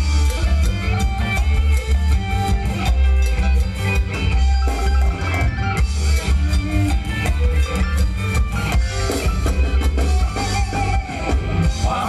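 Live band playing Thai ramwong dance music: a drum kit keeping a steady beat over heavy bass, with electric guitar.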